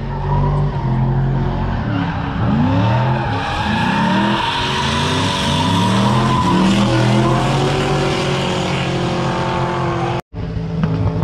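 Drift cars sliding on track: engines revving hard, their pitch climbing and dropping again and again, with tyres squealing throughout. A brief cut about ten seconds in.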